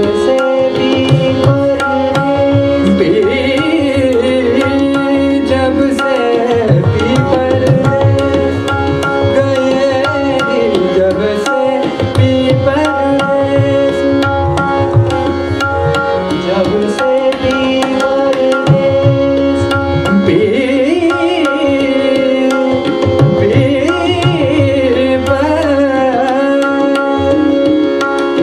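Hindustani classical vocal in raga Dhanashri: a male voice sings long, gliding melodic phrases over a steady tanpura drone, with tabla playing a continuous rhythm and harmonium following the melody.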